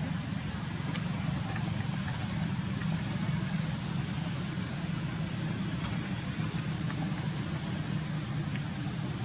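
A steady low rumble like an engine idling, unchanging throughout, with a thin, steady high-pitched whine above it.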